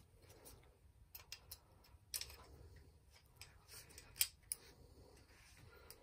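A scatter of faint small clicks and taps from hand tools being handled, the loudest a little after four seconds in.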